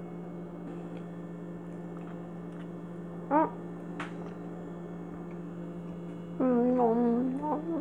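A woman eating a bite of donut with her mouth full: a short hummed 'mm' about three seconds in, then a long wavering 'mmm' of enjoyment near the end, the loudest sound. A steady low electrical hum lies underneath.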